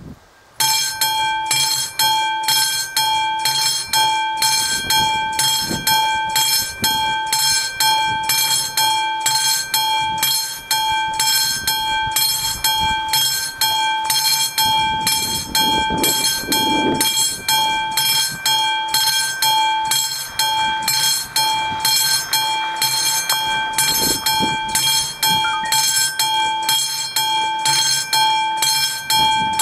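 Electromechanical bell of an AŽD 71 level-crossing warning signal ringing in a steady, even rhythm, starting about half a second in. It is the crossing's warning that a train is approaching.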